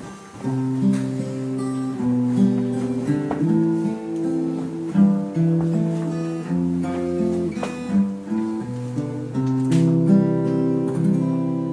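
Slow instrumental music: an acoustic guitar playing held chords that change every second or so.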